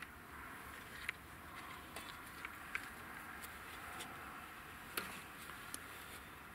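A few faint clicks and knocks as a CZ .22 rimfire rifle is lifted off its tripod and handled, the sharpest about five seconds in, over a steady hiss.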